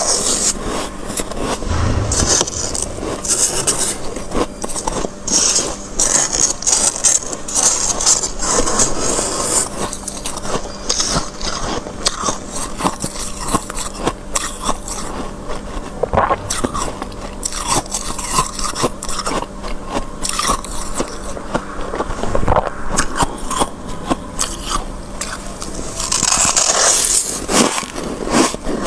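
A spoon scraping and scooping thick, packed frost off freezer shelves. Many small crunchy crackles run throughout, with louder hissing scrapes coming in bursts every few seconds.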